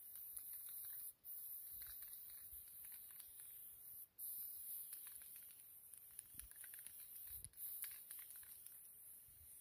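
Aerosol spray-paint can hissing in long sprays, broken by short pauses about a second in, about four seconds in and near the end.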